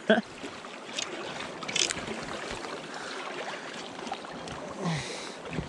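River current rushing and lapping around a small inflatable Water Master Kodiak raft, with a couple of light knocks about one and two seconds in.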